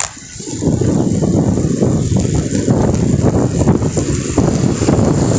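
Wind buffeting the microphone of a moving rider, with road and traffic noise; the rumble swells about half a second in and stays loud and unsteady.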